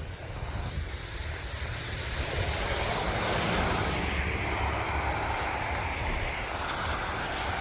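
Blizzard wind rushing, with a low buffeting rumble of wind on the microphone; the rush swells over the first three seconds and then holds steady.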